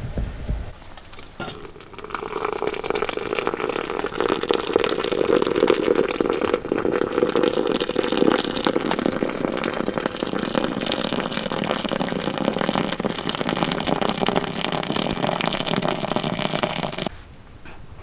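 Hot water poured from a camp kettle into a glass French press in one steady stream. It starts about a second and a half in and cuts off about a second before the end, with the press full.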